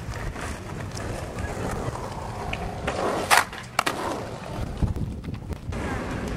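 Skateboard wheels rolling over concrete with a steady rumble, broken a little past halfway by two sharp clacks of the board about half a second apart.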